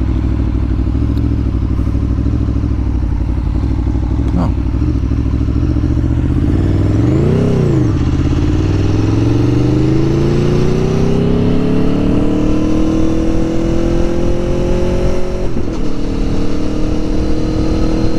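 2021 Aprilia Tuono Factory's V4 engine running steadily at low revs, then a quick rev up and back down about seven seconds in. After that it pulls with its pitch climbing steadily for several seconds, breaks briefly about fifteen seconds in, and runs on at higher revs.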